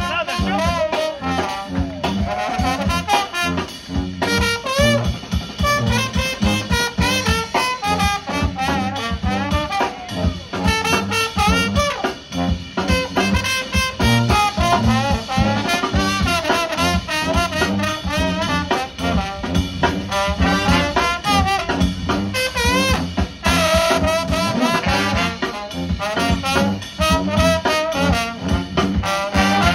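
A live brass band playing an upbeat New Orleans-style tune: trumpets, trombones, saxophones and sousaphone over a steady drum-kit beat. The horns swell into a loud, bright full-band passage a little after two-thirds of the way through.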